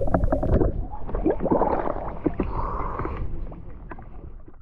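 Water gurgling and bubbling around a camera just below the surface, heard from underwater; louder at first, then fading.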